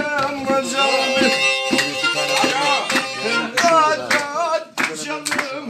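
Live Black Sea folk music: a plucked long-necked string instrument with a bowed kemençe-style melody full of quick bent ornaments over a held note.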